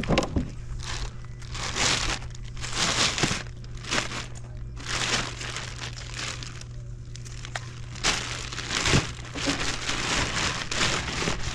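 Irregular bursts of crinkling and rustling, one after another, over a steady low hum.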